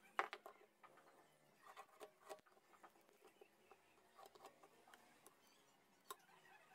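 Faint handling sounds of a steel ruler and pencil on a wooden board: a few light clicks and taps over quiet room tone. The sharpest comes just after the start, a small cluster follows around two seconds in, and one more comes near the end.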